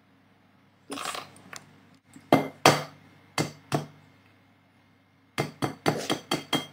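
A raw egg being knocked against the rim of a glass mixing bowl to crack it: two pairs of sharp taps, then a quick run of about seven taps near the end.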